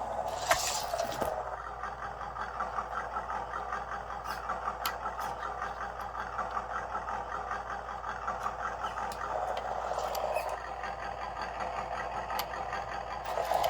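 Small brushed electric motor and gearbox of a WPL C24 RC crawler running steadily with an even, fast whir, driven by its faulty stock electronics that set it moving by itself. A sharp knock about half a second in.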